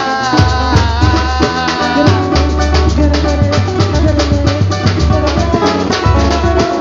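Samba/pagode band playing a steady, dense percussion rhythm of drums and hand percussion under a bass line and sustained melody lines.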